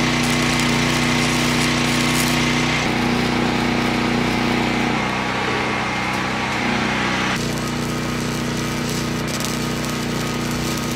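A power tool running steadily and loudly, a hiss with a low hum, its sound changing abruptly about three seconds in and again past the middle.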